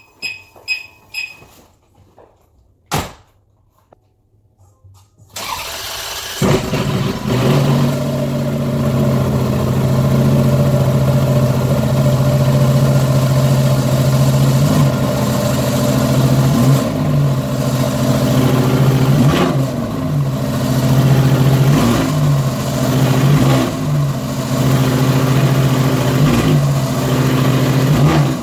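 A car door shuts about three seconds in, then a Ferrari's starter cranks for about a second and the engine catches, a cold start after three months sitting unused. It settles into a steady fast idle, its pitch briefly rising and falling a few times as the throttle is blipped.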